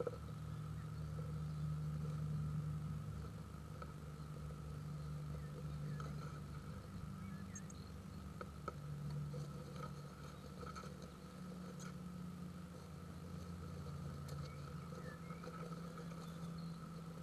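A steady low hum with a fainter steady higher tone above it, and a few faint ticks scattered through.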